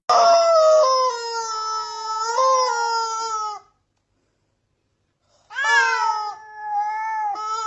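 A cat yowling in two long, drawn-out calls with a dead-silent break between them; the second call rises sharply at its start.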